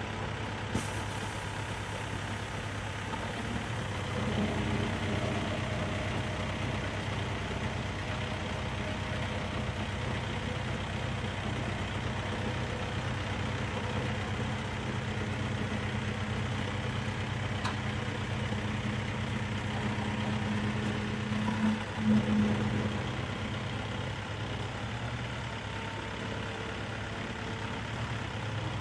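Flatbed tow truck's engine running steadily while its bed is worked to load the vehicle. A steady hum joins about four seconds in and stops a few seconds before the end, just after a brief louder swell.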